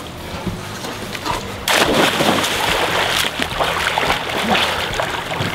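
A person going into a swimming pool, with a sudden splash about two seconds in, followed by continuous splashing and sloshing of water as he swims.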